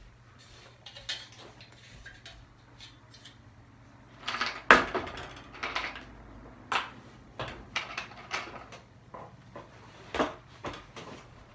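Metal bar-type ceiling register clattering and knocking as it is handled and pushed up into the duct opening: a string of sharp metallic clicks and knocks, the loudest about five seconds in.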